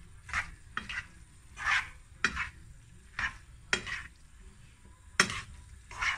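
Kitchen tongs stirring and tossing tagliolini in a nonstick frying pan, with repeated short scrapes and clicks against the pan, the sharpest about five seconds in. Wet pasta sizzles faintly in the hot pan after pasta cooking water has been added.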